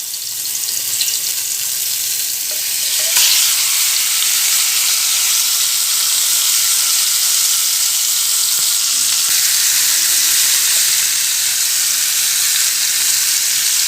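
Marinated chicken pieces sizzling in a little oil on a hot flat iron pan (tawa), the sizzle starting suddenly as the chicken goes in and getting louder about three seconds in, then holding steady.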